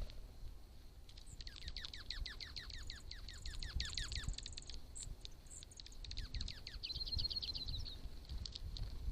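A bird calling: a fast run of downward-sweeping notes, about eight a second, for a few seconds, then a few more sweeps and a short high trill near the end, over a low rumble.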